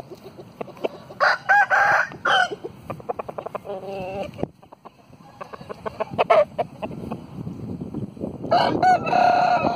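Roosters crowing: one long crow about a second in and another starting near the end, with a shorter call in between and a few small clicks.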